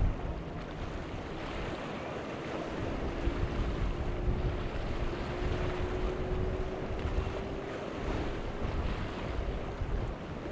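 Wind buffeting the microphone over choppy inlet water and surf, with a faint steady engine drone that rises slightly in pitch from about three seconds in.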